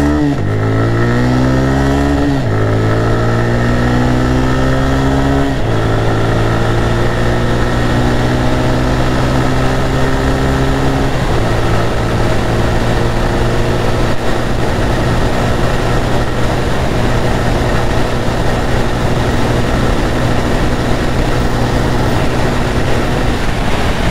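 TVS Raider 125's single-cylinder engine at full throttle, accelerating hard with the pitch climbing in each gear. It shifts up about two, five and a half and eleven seconds in, the pitch dropping at each change. In top gear the pitch creeps up only slowly as the bike tops out in the low 90s km/h, a limit the rider puts down to the engine perhaps being tuned by the maker.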